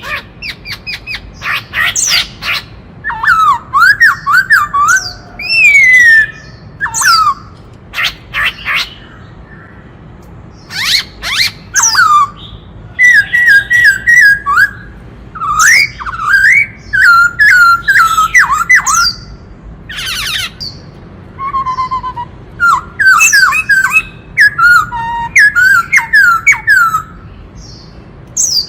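White-cheeked laughingthrush singing loudly in a varied run of phrases. Short whistled notes that slur up and down alternate with harsh, rasping squawks, and there is a brief pause near the middle.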